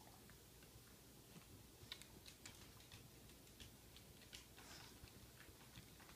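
Faint, irregular clicking and ticking from dogs moving and eating on a hardwood floor.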